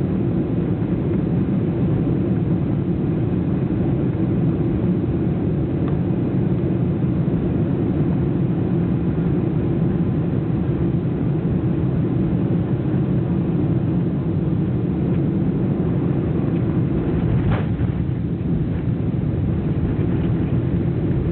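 Airliner's steady low rumble of engine and airflow noise, with a single sharp click late on.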